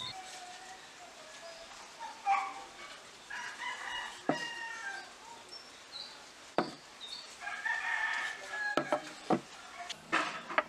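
Chickens calling, a rooster crowing with some clucking, several times over, broken by several sharp knocks.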